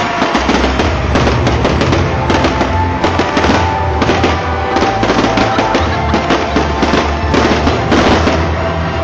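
Aerial fireworks bursting and crackling in rapid succession, over loud music with a steady low bass.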